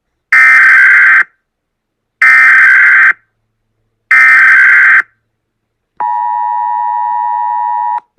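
Emergency Alert System tones: three loud, raspy digital data bursts of the SAME header, each about a second long and about two seconds apart. About six seconds in comes the steady two-tone EAS attention signal, quieter than the bursts, which cuts off near the end.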